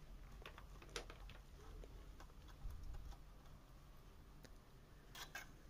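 Near silence: faint room tone with a few light clicks, one about a second in and two close together near the end.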